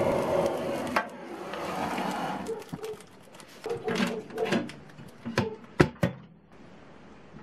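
Handheld canister gas torch hissing as it lights kindling in a Feringer sauna stove's firebox, cut off abruptly about a second in. Then a string of clicks, knocks and metal clanks as the firebox door is shut and latched, the loudest clank near the end.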